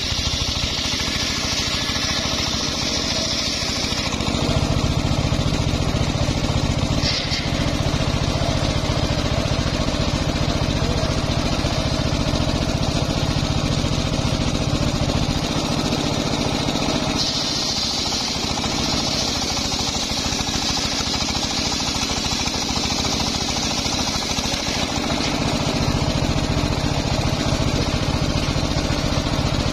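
Homemade engine-driven circular saw bench ripping a log lengthwise, running loud and steady throughout. Two long stretches are heavy and low, from about four to seventeen seconds in and again from about twenty-five seconds on, as the blade bites and the engine takes the load. In between, a high whine from the blade stands out.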